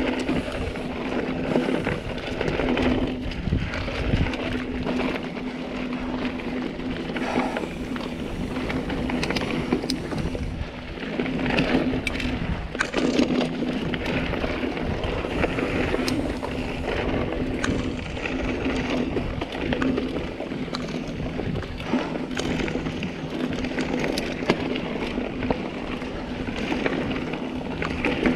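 Mountain bike riding fast over a dirt singletrack: tyres crunching on dirt, with frequent knocks and rattles from the bike over bumps and a steady low hum underneath.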